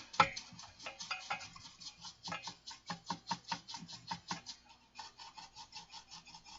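A brush dusting the inside of a dirty Crown XLi 2500 power amplifier: a rapid, irregular run of ticks and scrapes as the bristles flick over the parts inside, with a sharp knock just after the start.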